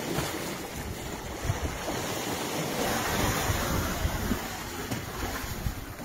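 Sea waves breaking and washing against shoreline rocks in a steady, surging rush, with wind buffeting the microphone.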